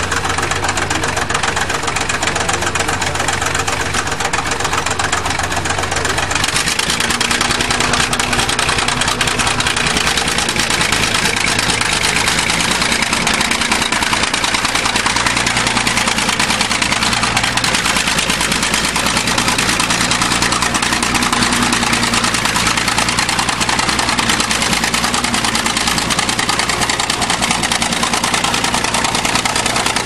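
Old crawler bulldozer's diesel engine running steadily as the machine pushes snow with its blade; the engine note changes about six seconds in.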